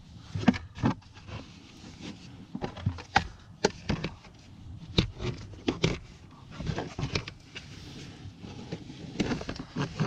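Plastic trim pieces knocking, clicking and scraping as a sound-deadening blower-motor cover is handled and worked into place under a car's dashboard. The taps come at irregular intervals.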